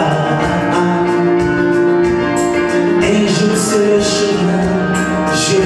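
A man singing a slow worship song into a microphone over instrumental accompaniment, with long held notes.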